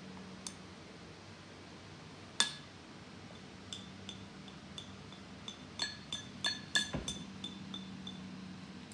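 A spoon clinking against a dish in a run of light, ringing taps that all ring at the same pitch. One sharper clink comes about two and a half seconds in, and a quicker cluster of taps follows between about five and a half and eight seconds.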